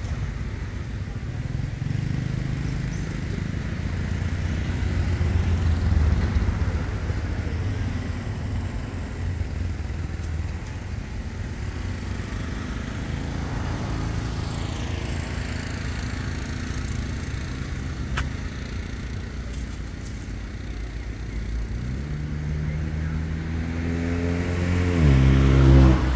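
Passing road-vehicle engines, a steady low rumble. Near the end one engine rises in pitch and gets loudest as it goes by.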